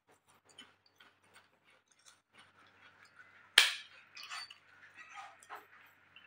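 A crispy cracker (kerupuk) snapped by hand with one sharp crack about three and a half seconds in, followed by a second or two of softer crackling as it is broken further. Faint small crunches and clicks come before it.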